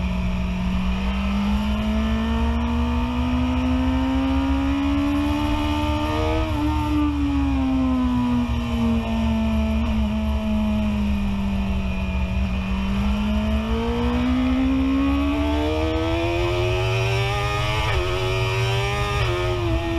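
BMW S1000RR inline-four engine at speed on a track, heard from on the bike: it climbs in pitch, eases off through a corner, then climbs hard again in second gear, with a steady wind rumble on the microphone. Near the end the pitch steps down as it shifts up into third.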